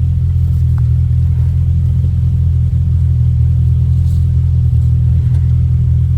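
Side-by-side UTV engine running at a steady low speed, a constant low drone with no change in pitch, as the machine crawls over trail obstacles.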